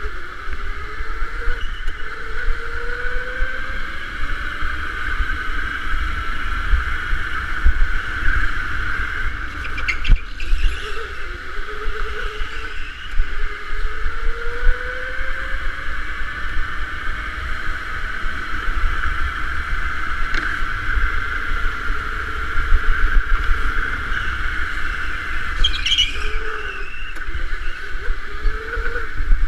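Electric go-kart running at speed: a steady high motor whine, with a lower whine that rises in pitch again and again as the kart accelerates out of corners, over a constant low rumble. A couple of short knocks stand out, about ten seconds in and near the end.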